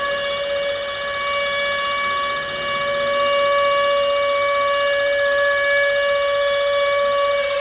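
Civil-defence air-raid siren sounding a nuclear attack warning, holding one steady high pitch that grows slightly louder about three seconds in.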